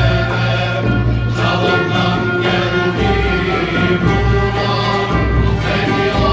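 Male choir singing in unison, accompanied by a Turkish ensemble of oud, kanun, ney flute, violin and frame drum.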